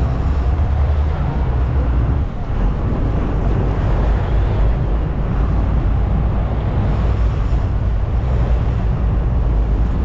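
Sportfishing boat under way: a steady low engine drone mixed with wind buffeting the microphone and the rush of water.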